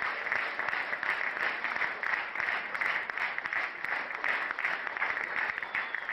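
Studio audience applauding: steady, dense clapping.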